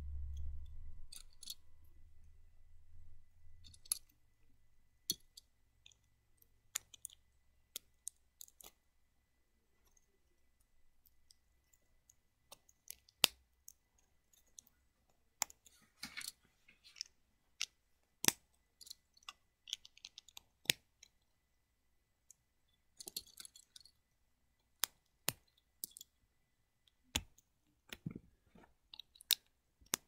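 Plastic Lego bricks clicking as they are pressed together and handled: sharp single clicks every second or so, with a couple of short rattling flurries of small pieces. A low rumble is heard in the first few seconds.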